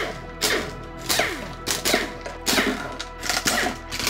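Cordless power driver spinning out the timing-belt cover bolts on a Subaru EJ251 flat-four, in about half a dozen short trigger bursts, each winding down in falling pitch as the trigger is let go.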